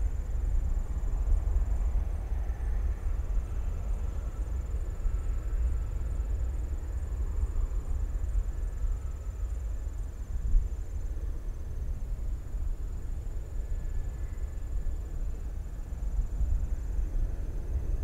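Distant rumble of a Southwest Boeing 737's twin jet engines at takeoff thrust as it rolls down the runway, a steady deep roar with little above the low end.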